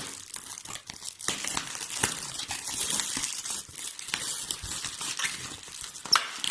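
Packing material crinkling and rustling as it is handled, with a few sharper crackles and clicks mixed in.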